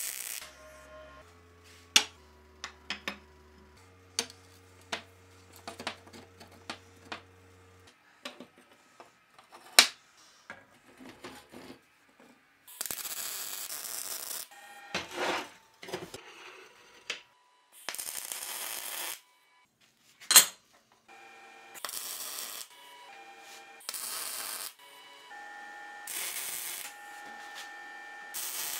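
Sharp metallic clicks and taps of steel parts and clamps being handled, then MIG welding in several short bursts of crackling hiss, each about a second long, with clinks between the welds.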